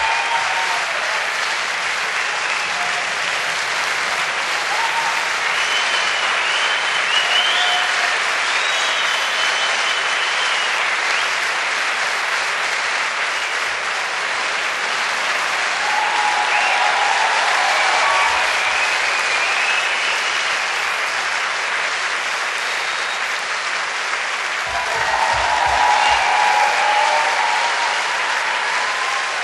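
Large theatre audience applauding steadily, with a few cheers rising over the clapping now and then.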